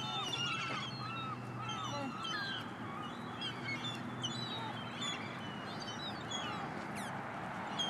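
A flock of seagulls calling over one another: many short, arching cries overlapping throughout, as the gulls crowd in to be fed.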